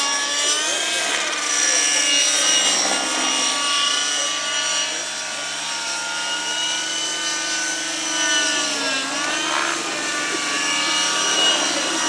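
Radio-controlled model helicopter flying, its motor and rotor whine held high and steady, dipping in pitch and recovering twice as it manoeuvres.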